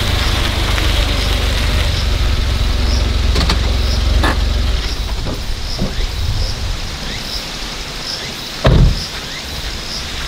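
Small kei van's engine running as the van rolls slowly forward over gravel and comes to a stop, with the low engine rumble easing off about halfway through and a few crackles of stones under the tyres. A single loud thump comes near the end.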